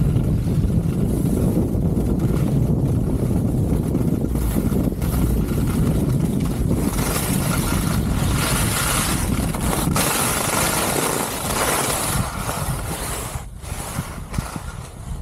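Wind rushing over the camera microphone with the hiss of skis sliding on snow during a fast downhill run. It quietens near the end as the skier slows.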